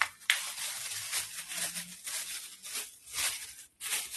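Thin plastic bag crinkling and rustling in a series of irregular crackles as it is handled and pulled open.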